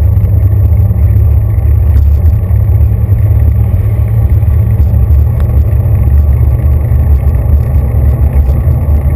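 Loud, steady low rumble of a bicycle rolling over pavement: tyre and road vibration carried through the handlebar mount straight into the camera, even through its rubber protective sleeve.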